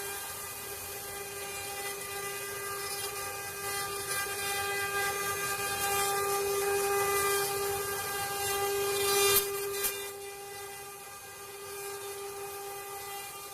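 CNC wood-carving router spindle running with a steady high whine while the bit cuts wood. The cutting noise grows louder through the middle, peaks sharply about nine seconds in, then eases off.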